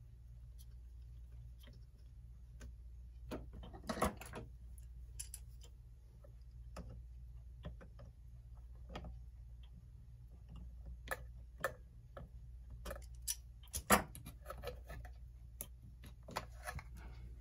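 Irregular clicks and light metal knocks of a vice grip turning a clock's set knob onto its reverse-threaded stem, loudest about four seconds in and again near fourteen seconds. A steady low hum runs underneath.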